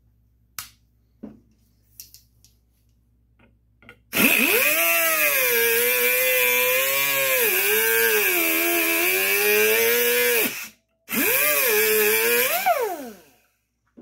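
Bench grinder with a wire wheel switched on about four seconds in and run up to speed, its pitch sagging and recovering as a small steel part held in locking pliers is pressed against the wheel. It is then switched off and spins down with a falling whine near the end. A few light metal clicks come before it starts.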